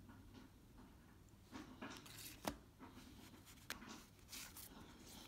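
Faint rustling and light clicks of paper and card being handled, with one sharper tap about two and a half seconds in.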